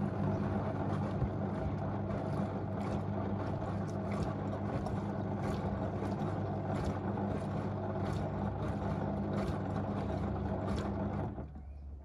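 LG direct-drive front-loading washing machine turning its drum with a heavy carpet load: a steady motor hum with repeated knocks and thuds from the tumbling load. It cuts off abruptly near the end as the drum stops.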